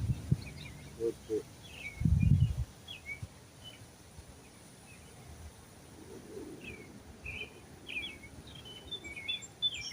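Small birds chirping, with many short, high chirps scattered throughout, more of them in the second half. A low muffled rumble of handling noise about two seconds in.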